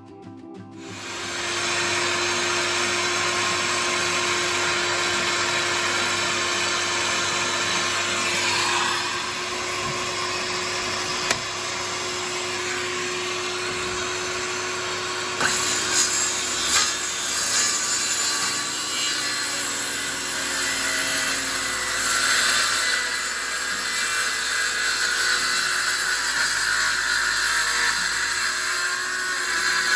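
Electric power-tool motor running steadily. It starts about a second in, with a sharp click near the middle and a few knocks shortly after.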